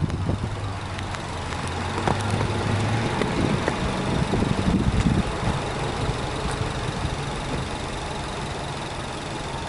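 Subaru Legacy B4 2.0GT's turbocharged 2.0-litre flat-four (boxer) engine idling, heard at the open engine bay. Its note wavers and rises slightly about three to five seconds in, then settles into a steady idle.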